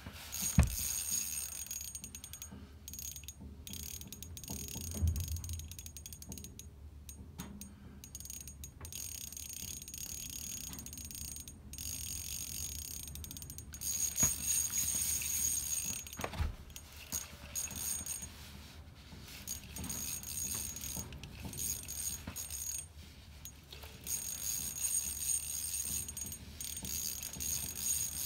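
Fishing reel being cranked with its drag clicking, under the load of a large northern pike on the line. A thin high whine comes and goes, and there are a few sharp ticks.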